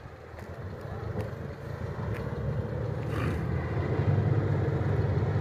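Low, steady engine drone of the river ferry's pusher boat, growing louder as the loaded ferry nears the bank.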